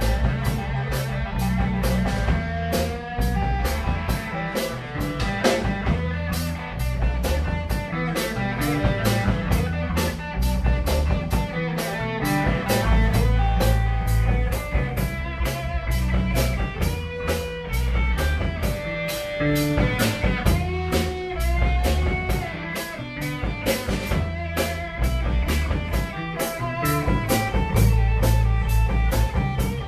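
A live blues-rock band playing an instrumental passage: electric guitar lines over bass guitar, with a drum kit keeping a steady beat.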